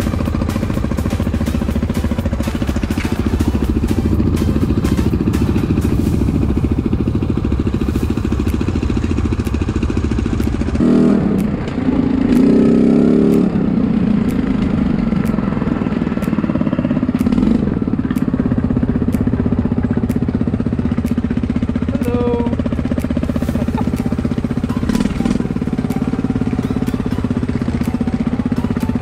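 Quad bike (ATV) engine running under way on a bumpy dirt trail, with many sharp rattles and knocks. About eleven seconds in the engine note rises briefly, then settles at a higher steady pitch.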